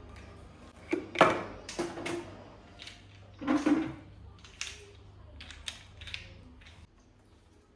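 Plastic parts of a new vacuum cleaner being handled and fitted together: a series of irregular clicks and knocks, a few louder rustling knocks in the first four seconds, over a faint low hum.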